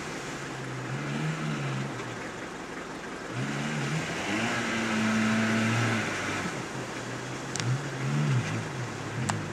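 Suzuki SJ off-roader's engine revving up and easing off in repeated waves as it churns its wheels through deep mud, with two sharp clicks near the end.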